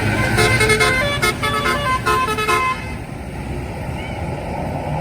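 A bus's telolet basuri musical air horn plays a fast tune of short notes jumping up and down in pitch, cutting off suddenly about two and a half seconds in. Engine and road noise of the passing bus continue underneath and after it.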